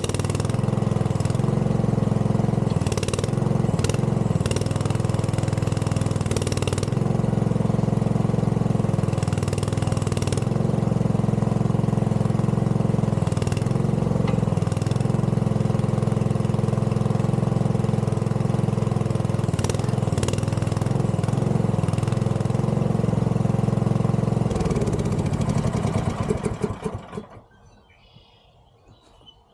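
A mini excavator's engine runs steadily while the hydraulics work the boom and bucket, with its pitch dipping briefly several times as it takes load. Near the end the engine is shut off and winds down to a stop.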